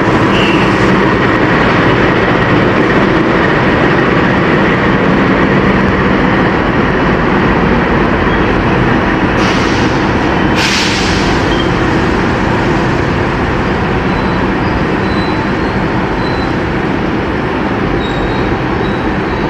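CC206 diesel locomotive idling steadily at the head of a standing passenger train, a loud continuous engine hum. Two short hisses come about halfway through.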